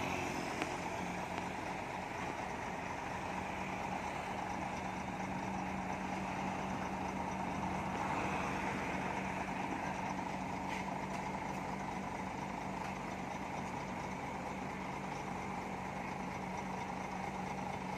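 Heavy 12-wheel dump truck's diesel engine running steadily with a constant low hum.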